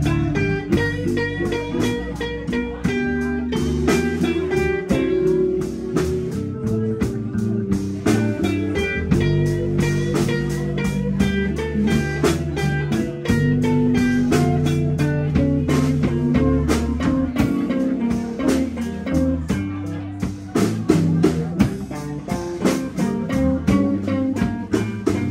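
Live blues band playing: electric guitars over electric bass guitar and a drum kit keeping a steady beat.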